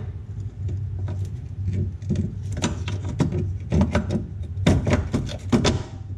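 Metal clinks and knocks as a lower control arm bolt is pushed and worked into line through the sway bar bracket and the control arm, coming in quick clusters in the second half. A low steady hum runs underneath.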